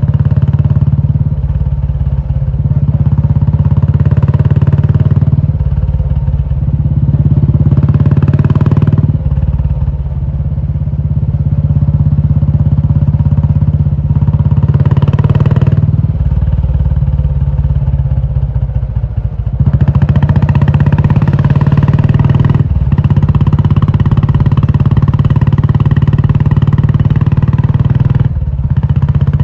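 Royal Enfield Classic 350's single-cylinder engine running through a loud aftermarket Indore exhaust. The note swells and falls back three times, then runs louder for the last third, with two brief drops.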